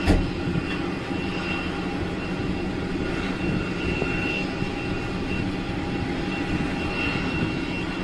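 Steady aircraft engine noise, with a sudden thump right at the start.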